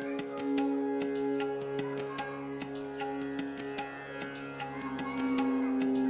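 Instrumental music: plucked strings picking out notes over a steady held drone.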